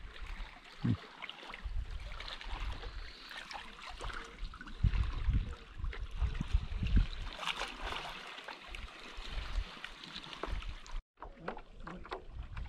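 Small waves lapping and gurgling against shoreline rocks beside a paddleboard, with uneven low rumbles of wind or handling on the microphone. The sound cuts out for a moment near the end.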